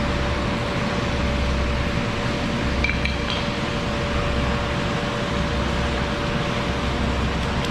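Steady rush of creek water flowing through a dug channel, with a few brief high clinks about three seconds in.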